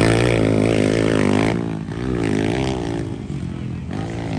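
Motocross dirt bike engine revving on the track, its pitch rising and falling as the throttle is worked, with a drop and fresh climb about a second and a half in and again near the end.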